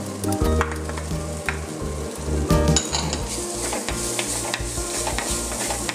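Sliced shallots and green chillies frying in oil in a clay pot, stirred and scraped with a wooden spoon, with a few short knocks of the spoon. The sizzle grows louder about halfway through as the onions spread over the hot pot.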